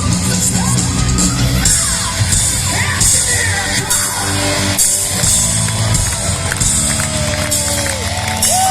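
A hard rock band playing live at full volume, with crashes about once a second over the dense backing, and a crowd shouting and cheering along.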